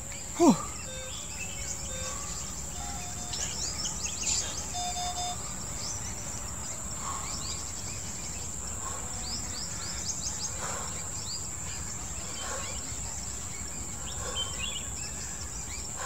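Steady high-pitched insect drone with many birds chirping over it. About half a second in, one loud short sound slides sharply down in pitch.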